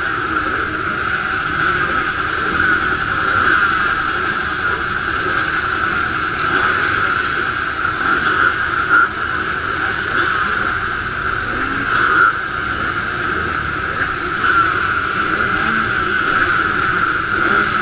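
A field of motocross bikes running together on the start line: a steady, loud engine drone with no single rev standing out.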